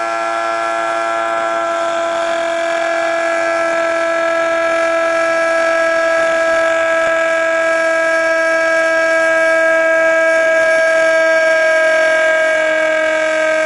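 A cartoon pony's yell, frozen by an editing effect into a loud, steady buzzing tone at one unchanging pitch, like a held horn note. A few of its lower overtones fade near the end.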